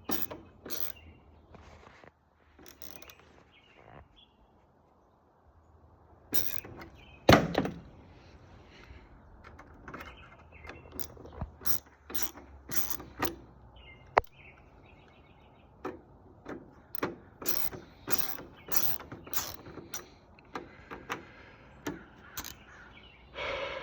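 Hand work on a sliding door's lock hardware: scattered clicks, taps and knocks of metal parts and tools, with one loud knock about seven seconds in. In the last third the clicks come in a fairly regular run, about one or two a second.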